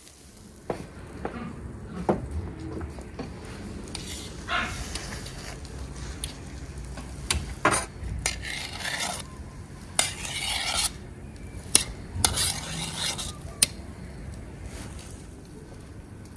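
Dishes and cutlery handled: scattered sharp clinks, with several stretches of scraping or rustling noise between them.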